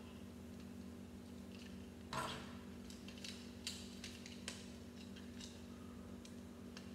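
Small plastic building bricks being handled and pressed together: a few sharp clicks and taps, the loudest about two seconds in, over a steady low hum.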